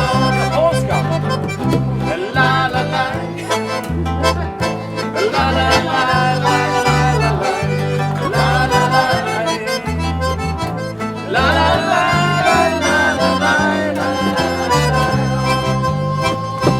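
Live instrumental folk/country tune: guitars with a stepping bass line under a reedy lead melody in the style of an accordion or harmonica.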